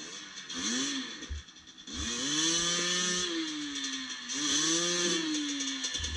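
Dirt bike engine revving up and falling back in three long sweeps, the longest about two seconds, as the bike is worked up a rocky climb with the rider and a helper pushing.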